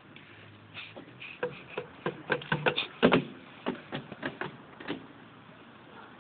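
Hanging rope-net swing creaking and clicking as it swings: a run of short, irregular creaks and knocks, loudest about three seconds in.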